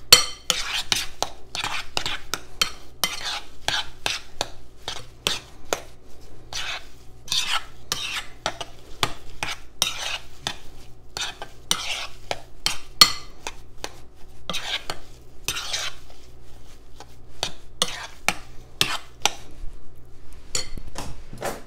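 A metal spoon mixing thick instant mashed potatoes in a glass bowl, with irregular scrapes and clinks against the glass.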